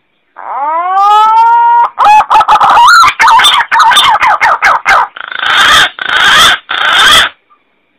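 Green pigeon (punai) call: a rising whistled note, then a quick run of warbling, sliding whistles, ending in three harsh rasping notes.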